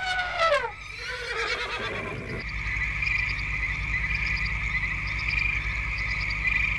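Animal sound effects: a falling, horse-like whinny in the first second, then a steady, pulsing chorus of frogs calling.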